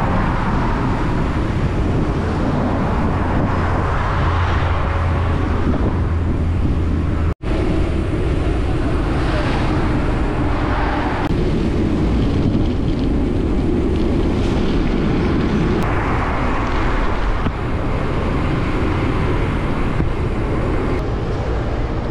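Steady wind rumble over a mountain bike's handlebar-mounted camera while riding along a road, mixed with the noise of passing motor traffic. The sound drops out for an instant about seven seconds in.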